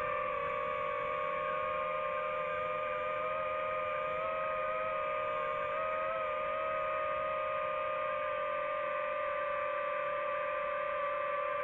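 Small quadcopter's electric motors and propellers whining steadily, heard from the craft's own onboard camera, the pitch holding nearly level with slight wobbles.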